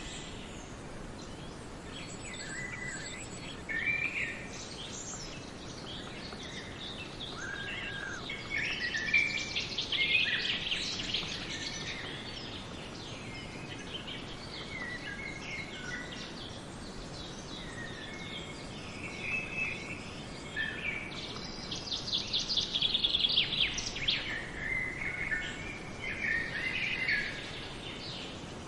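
Several songbirds singing and calling in forest, short chirps and whistles over a steady background hiss, with fast trills about nine seconds in and again a little past twenty seconds.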